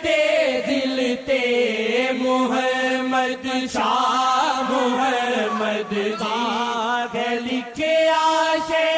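Devotional naat singing: voices hold long, wavering, drawn-out notes over a steady sustained note, without clear words.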